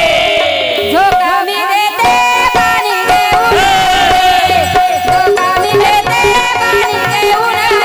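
Marathi devotional gavlan music: a long held melodic note with moving melody above it, over regular hand-drum strokes.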